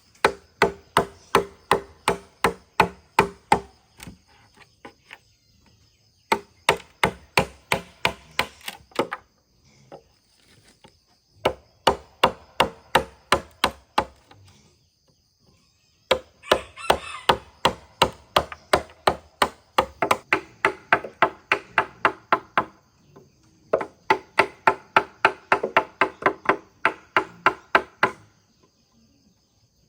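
A blade chopping bamboo with rapid blows, about three to four a second, in runs of a few seconds separated by short pauses, each blow ringing briefly.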